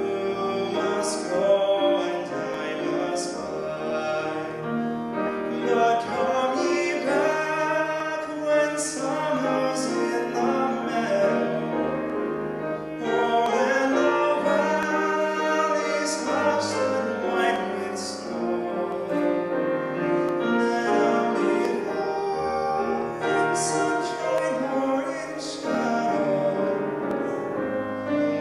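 A man singing a song into a handheld microphone, his voice amplified, holding and bending long sung notes.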